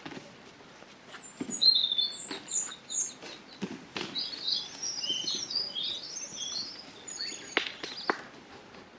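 Small birds chirping and twittering in short, high phrases, with scattered knocks and rustles.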